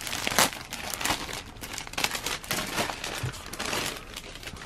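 Clear plastic packaging crinkling and rustling as it is handled, in irregular crackles that thin out near the end.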